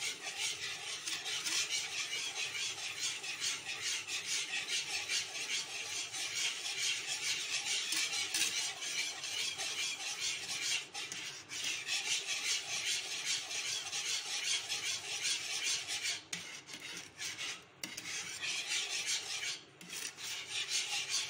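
Wire balloon whisk beating and scraping against a metal frying pan in quick, continuous strokes, whisking milk powder into milk and ghee to break up lumps. The whisking pauses briefly a few times in the second half.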